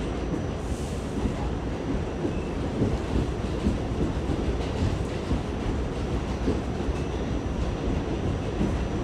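R46 subway car running at speed on the A train, heard from inside the car: a steady low running noise of wheels on rails, with irregular short knocks as the wheels pass rail joints.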